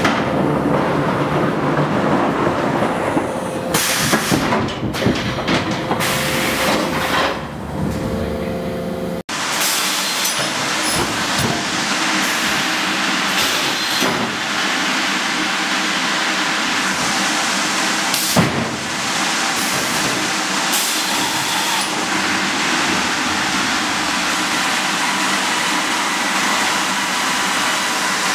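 Sawmill machinery running: a log carriage and headrig band saw make a loud, steady mechanical clatter and hiss, with occasional clunks. The sound changes abruptly about nine seconds in.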